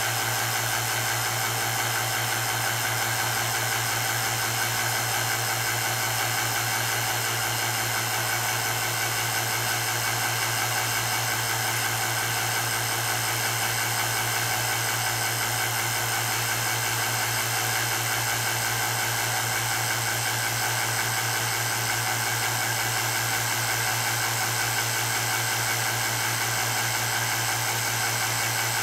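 Vacuum pump running with a steady hum as it draws a vacuum chamber down toward the controller's −98 kPa cut-off point.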